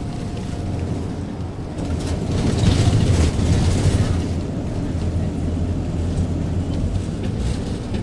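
Steady low rumble of a moving vehicle's engine with road noise, swelling louder for a couple of seconds about two seconds in.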